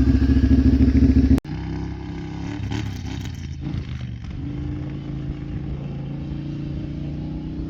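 Kawasaki Brute Force 750 ATV's V-twin with a full Muzzy exhaust idling loudly with a rapid pulsing note. About a second and a half in, the sound cuts off abruptly to a quieter, steady engine drone.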